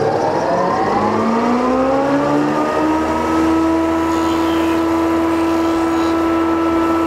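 Old industrial thickness planer switched on: its motor and cutterhead spin up with a rising hum over about three seconds, then run steadily at speed.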